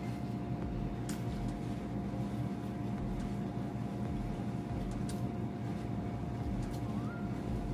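Steady low hum with a faint steady tone running under it, and a few brief sharp clicks of someone chewing fried chicken.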